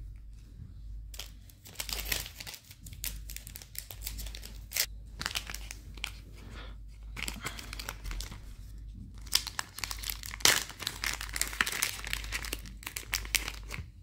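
Plastic bag of Keitech soft-plastic lures crinkling as it is handled and opened to take a lure out, in irregular bursts with short pauses.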